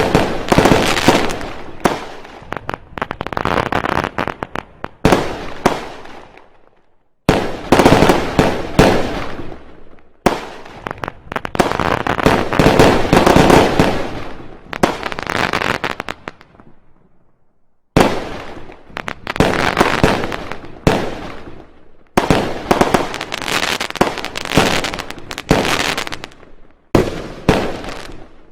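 Fireworks going off in dense strings of rapid bangs and crackles, in several barrages of a few seconds each that start suddenly and die away.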